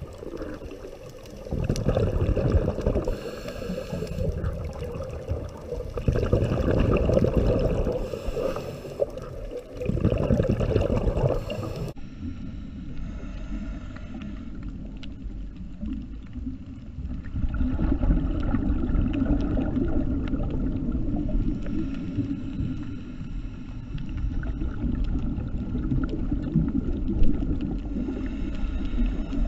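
Underwater ambience of a scuba dive: the diver's exhaled regulator bubbles come as a low rumble in surges a few seconds long, with quieter gaps between breaths. After a cut about twelve seconds in, a steadier, duller underwater rumble follows.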